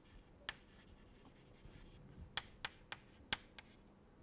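Faint chalk strokes and taps on a chalkboard as words are handwritten: one tap about half a second in, then a quick run of five taps in the second half.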